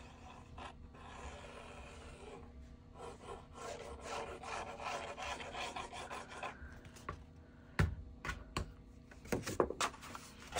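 The plastic nozzle of a squeeze bottle of white craft glue scraping and rubbing along a kraft cardstock flap as glue is laid down, a faint scratchy sound. About eight seconds in there are a few sharp knocks and paper handling as the bottle is put down and the sheets are moved.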